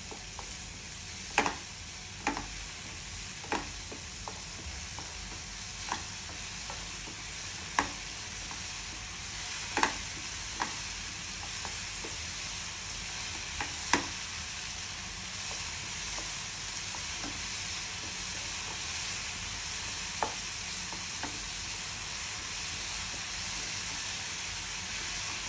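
Chopped onion, tomato and ketchup sizzling with a steady hiss in a nonstick frying pan over a full gas flame, while a wooden spatula stirs them, knocking and scraping sharply against the pan every second or few.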